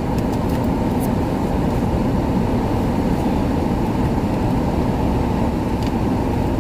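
Steady low rushing noise inside a stopped car's cabin, the air conditioning blowing hard with the engine running. A few faint clicks come near the start and again near the end.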